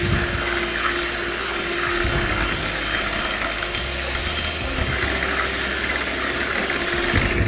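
Anex electric hand mixer running steadily, its beaters whisking cake batter in a glass bowl: an even motor whirr with a constant hum.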